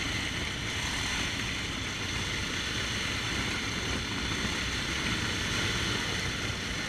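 Antique motorcycle engines running steadily at idle, a low even drone.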